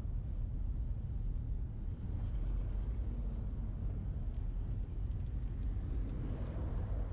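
City street traffic: a steady low rumble of engines and tyres, swelling as a vehicle passes near the end.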